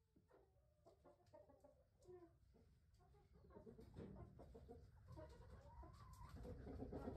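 Faint short clucks from a domestic hen laying an egg: a few scattered calls at first, then more frequent and louder from about halfway in.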